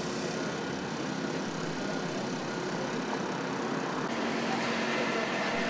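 Steady drone of engines and machinery running, with a few steady hums through it. About four seconds in it grows slightly louder and a lower hum joins.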